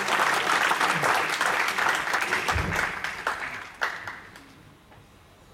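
Audience applauding at the end of a song: dense clapping that thins out and dies away about four seconds in.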